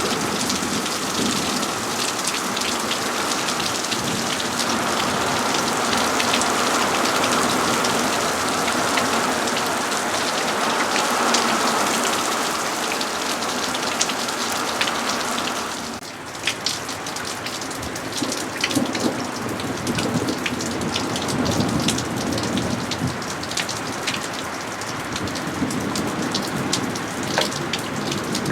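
Steady rain falling, with many individual drops ticking through the hiss. A little past halfway the sound changes abruptly, with a brief dip in loudness and a different mix of hiss afterwards.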